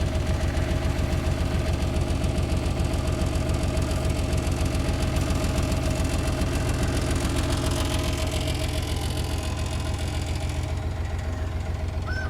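The three-cylinder diesel engine of a Komatsu PC28UU mini excavator running steadily, with an even, rapid low pulsing beat.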